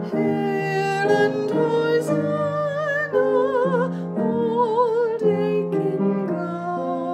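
A woman singing a slow hymn verse solo with clear vibrato on the held notes, over a sustained instrumental accompaniment.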